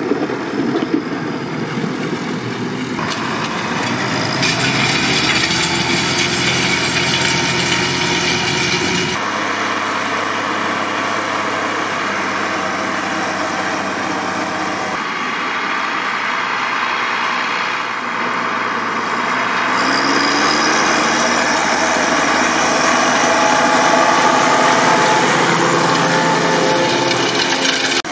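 IHC 1255XL tractor's six-cylinder diesel engine running under load while pulling a cultivator. The sound changes abruptly several times, and its pitch rises for a few seconds past the middle.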